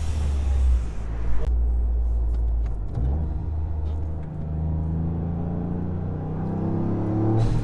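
Toyota GR Yaris's turbocharged 1.6-litre three-cylinder engine pulling away at low revs. Its open, atmosphere-venting Turbosmart blow-off valve blows out with a loud hissing whoosh that cuts off suddenly about a second and a half in, and again near the end as the revs climb.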